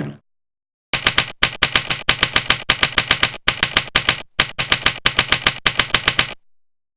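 Typewriter keystrokes, rapid sharp clicks at about four or five a second in several short runs, stopping abruptly.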